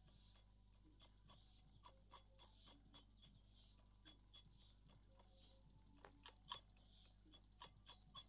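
Wooden pestle pounding spice paste in a stone mortar: faint, quick knocks, about three a second.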